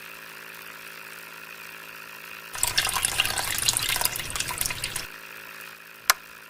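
Water being poured, a crackling splash lasting about two and a half seconds from a few seconds in, over a faint steady hum; a single sharp click near the end.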